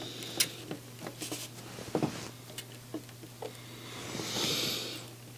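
Faint scattered clicks and taps of a soldering iron and copper desoldering braid working the pins of an IC on a circuit board, over a steady low hum. A soft hiss swells and fades about four seconds in.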